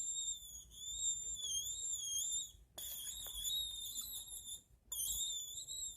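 High-pitched wavering squeak from a taken-apart mechanical pencil, its parts twisted against each other so that they rub: three long squeals with short breaks about three and five seconds in, mimicking a dying mouse.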